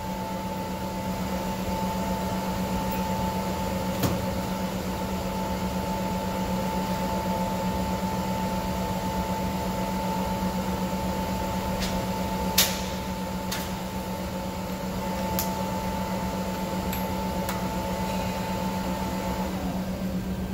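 Steady machine hum with a low drone and a higher whine; the whine stops near the end. A few sharp clicks stand out over it, the clearest about four seconds in and about twelve seconds in.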